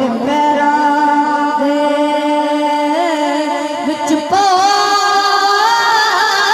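A boy singing a Punjabi naat solo into a microphone, holding one long note with ornamented wavering, then stepping up to a higher held note about four seconds in.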